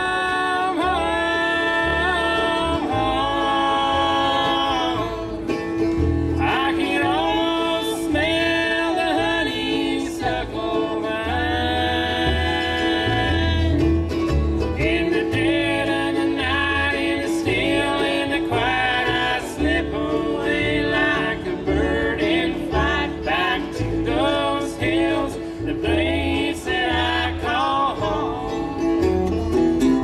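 Live acoustic string band with several voices singing close harmony around one microphone, accompanied by fiddle, acoustic guitar and upright bass, in a country/bluegrass style.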